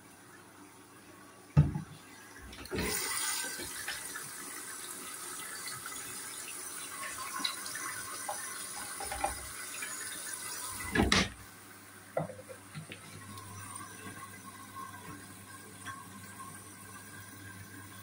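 Hoover washing machine's water inlet hissing as water runs in through the detergent drawer at the start of a duvet cycle. There is a knock before the hiss starts, and a loud knock as it stops about eleven seconds in. A quieter steady hum follows.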